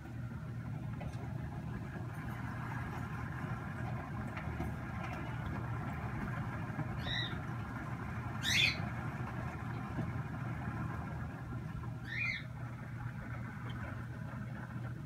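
Steady low hum of room noise, with three short high-pitched chirps about a second and a half and then four seconds apart, the middle one the loudest.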